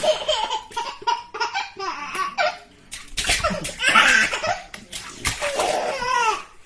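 A small child laughing hard in repeated bursts, loudest about four seconds in.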